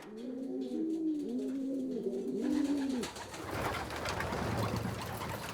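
Several racing pigeons cooing together in a loft, their coos overlapping. After about three seconds the cooing gives way to a rustling, shuffling noise.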